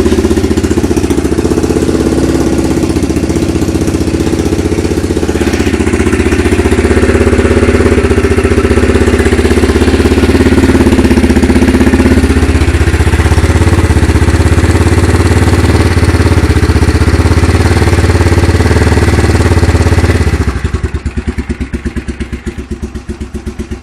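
Yamaha Warrior 350 ATV's single-cylinder four-stroke engine running cold at a fast, loud idle. Near the end it drops suddenly to a slow idle with separate, distinct beats.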